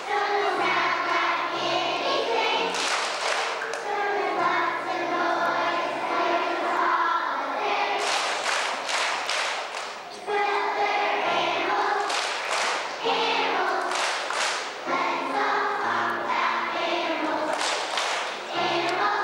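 Children's choir singing a song together in unison.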